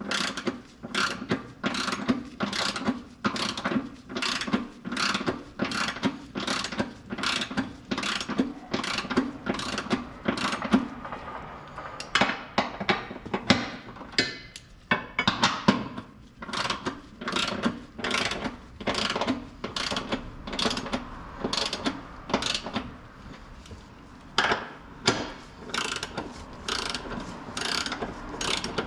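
Socket ratchet wrench clicking as it is swung back and forth to turn a bolt, about two strokes a second, with a short pause about halfway.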